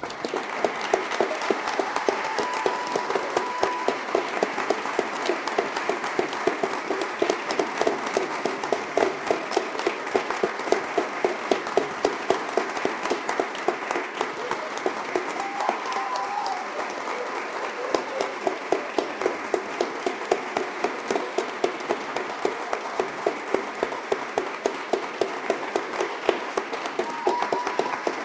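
A crowd applauding, with many hands clapping densely at an even level. A brief held higher note rises above the clapping a few seconds in, around the middle, and near the end.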